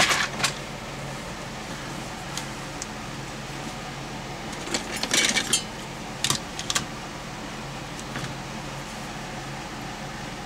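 Small metal parts and hand tools clinking and clattering as they are handled during a repair: a sharp clack at the start, a cluster of rattles around the middle and two more clicks shortly after, over a steady low hum.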